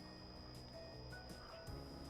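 Faint background music with steady, held tones.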